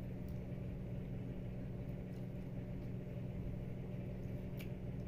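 Steady low machine hum in a small room, with a faint click about four and a half seconds in.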